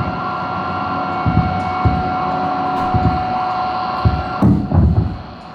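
Sound check through the PA: a steady electrical hum with two held high tones cuts off suddenly about four and a half seconds in, while irregular low thuds, like bass notes or a kick drum, sound a few times.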